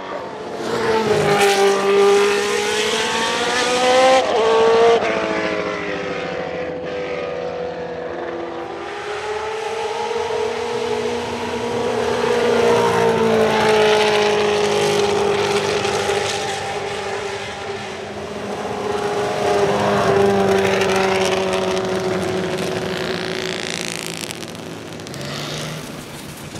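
Judd EV 3.5-litre V8 of a Leyton House March Formula One car at full throttle, the engine note climbing and dropping sharply with each gear change as the car accelerates past. It comes loud, then fades, over several passes.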